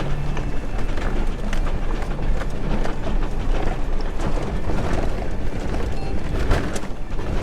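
A vehicle driving off-road over rough, stony ground: a continuous low rumble with scattered knocks and rattles throughout.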